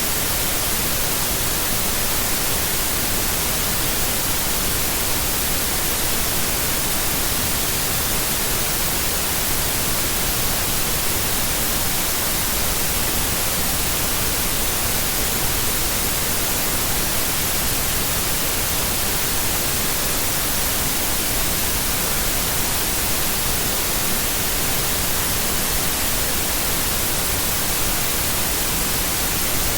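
Steady white noise: an even hiss, strongest in the highs, that does not change.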